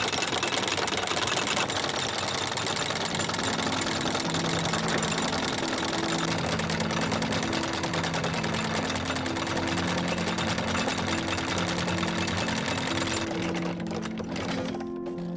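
An engine running steadily with a fast, even clatter, likely the boat's inboard engine. Background music with slow held notes comes in about three seconds in, and the engine sound cuts off near the end, leaving the music.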